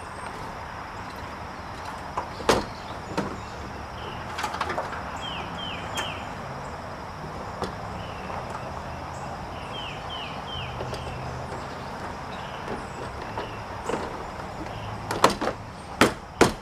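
Sharp knocks and clicks of car body parts and tools being handled while a headlight is fitted, the loudest cluster near the end. A bird chirps in short falling notes, mostly three at a time, throughout.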